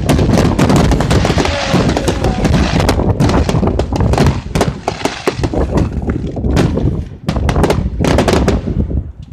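Aerial fireworks bursting in rapid succession: a dense run of bangs and crackling pops, dipping briefly about seven seconds in.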